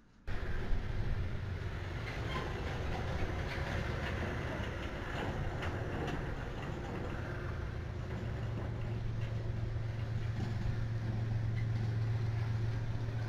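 Diesel locomotive engines running as a train moves past, a steady noisy rumble with a low hum that grows stronger about two-thirds of the way through.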